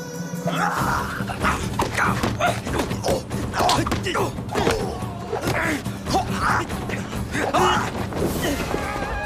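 Kung fu fight sound effects: a rapid run of punch and block impacts mixed with short shouts and grunts, over background music.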